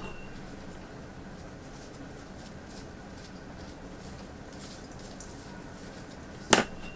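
Quiet kitchen with faint handling rustles, then near the end a single sharp knock of a utensil or jar being set down on the worktable.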